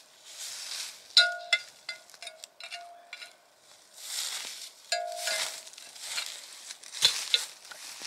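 Rustling and scraping in dry grass and soil, broken by several sharp metallic clinks that ring briefly, as dug-up iron harrow teeth are handled.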